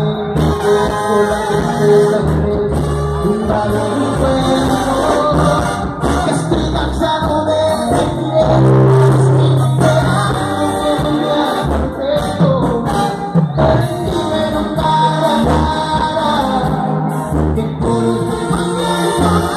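Live Latin brass band music: trumpets and tubas playing with a man singing.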